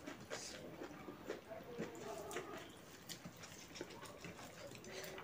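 Close-miked eating sounds: chewing and small wet mouth clicks and smacks, with fingers mixing rice and smoked pork intestine on a plate, in many short irregular clicks.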